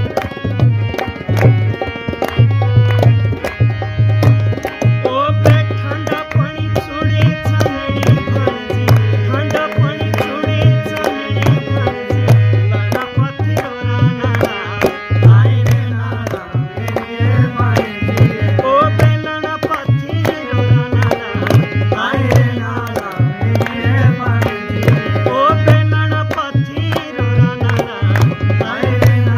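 Himachali nati folk music: a steady, driving drum beat under a melody line with sliding notes.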